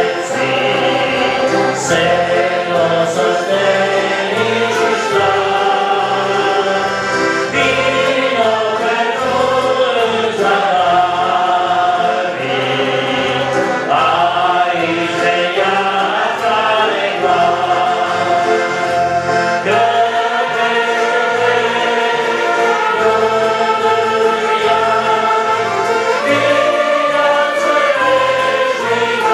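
Church orchestra playing a hymn, with sustained melody lines moving over a steady, pulsing bass.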